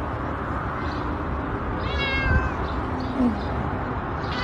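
A cat meowing once, a high call about two seconds in, over steady background noise.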